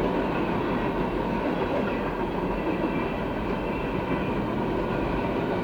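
CSX freight train's cars rolling past close by: a steady noise of steel wheels running on the rails.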